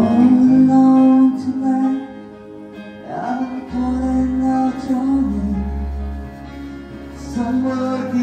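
Live acoustic band music: a man sings a slow song into a microphone, holding long notes, accompanied by acoustic guitar and an electronic keyboard. The sung phrases break briefly about two, three and seven seconds in.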